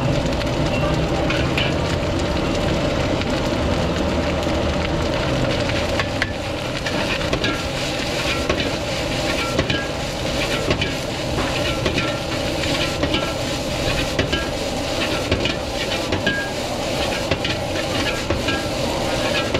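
Fried rice sizzling in a wok while a metal ladle stirs and scrapes it, clanking against the wok. Sharp ladle strikes come more often from about six seconds in.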